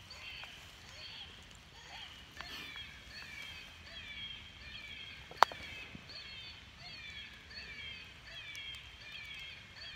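Electronic predator caller playing an animal distress call: a steady string of shrill, falling squeals repeating several times a second. A single sharp click about halfway through.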